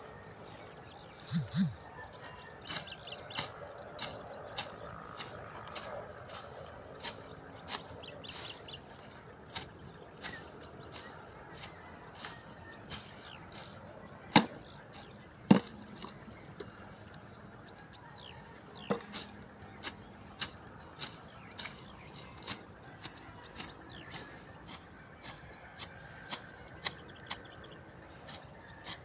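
A karet (sickle) slashing through tall grass and weeds in short, sharp strokes, about one a second, with two louder strokes about halfway through. Insects chirr steadily in the background.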